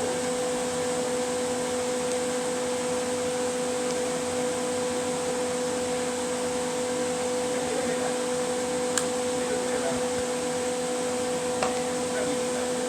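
Steady mechanical hum with a constant tone, like a fan or appliance motor running, with a couple of faint clicks.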